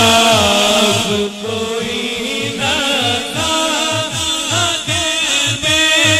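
Naat sung by a male reciter through a sound system: long, wavering ornamented notes with no clear words, over a steady low pulsing beat.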